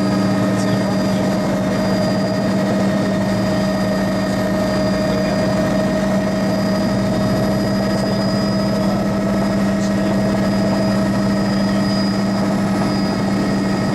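A helicopter in flight, its engine and rotor making a loud, steady drone: a strong low hum with several steady whining tones above it.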